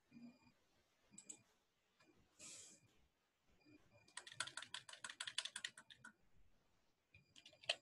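Computer keyboard being tapped, faintly. A few single clicks come first, then a fast run of about ten keystrokes a second for roughly two seconds as one key is tapped over and over to delete a line of text, then a few more clicks near the end.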